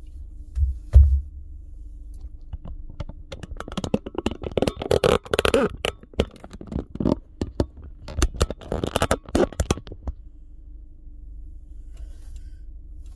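Handling noise close to the microphone: two low thumps about a second in, then several seconds of dense clicking, tapping and scraping, over a steady low hum.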